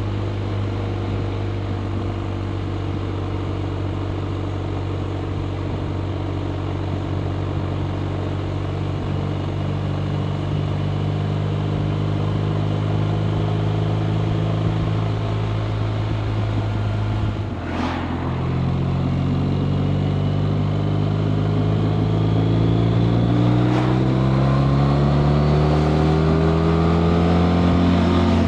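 BMW R 1250 RT's boxer-twin engine pulling the motorcycle along, its note slowly rising with speed. About two thirds of the way through it dips briefly at a gear change, then climbs steadily in pitch as the bike accelerates, with wind and road rush underneath.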